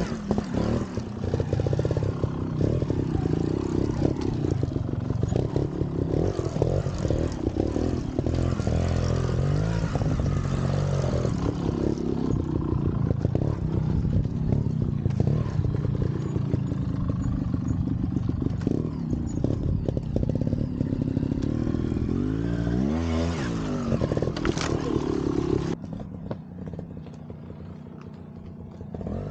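Trials motorcycle engine revving, its pitch rising and falling again and again as it is ridden; near the end it suddenly drops away to a much lower level.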